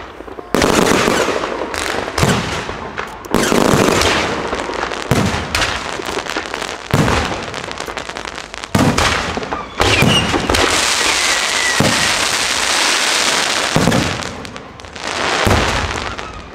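Aerial firework shells bursting one after another, a sharp boom every second or two, with a stretch of dense continuous crackle from about ten to fourteen seconds in.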